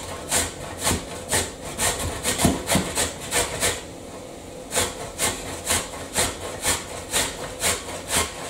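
Raw beetroot being grated by hand on a metal box grater standing on a ceramic plate: steady rasping strokes, about two a second, with a short pause about four seconds in.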